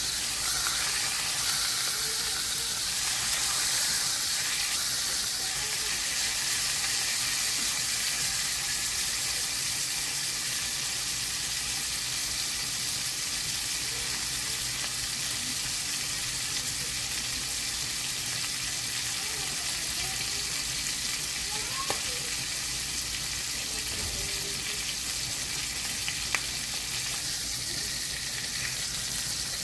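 Whole squirrel frying in hot olive oil in a cast iron skillet, a steady sizzle. The spatula works the meat, with a couple of sharp taps in the last third.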